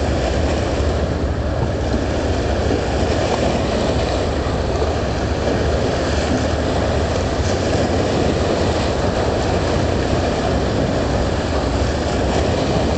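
A boat engine running steadily, with water rushing and chopping alongside; a constant low drone with no change in pitch.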